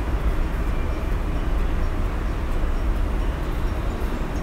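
Nimki pastries deep-frying in hot oil in a karahi: a steady sizzle of bubbling oil, over a steady low rumble.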